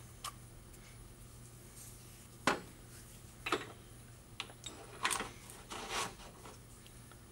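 Steel parts of a pipe roller clinking and knocking as its roller die and bearings are worked back onto the shaft: a sharp knock about two and a half seconds in, then a few lighter clinks.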